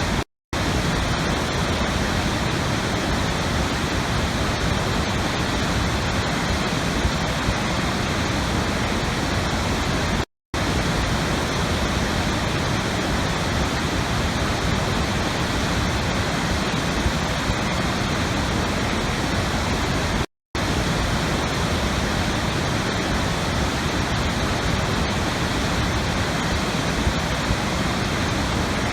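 Steady rushing water noise, even and unchanging, that cuts out to silence for a split second three times, about ten seconds apart, as the recording loops.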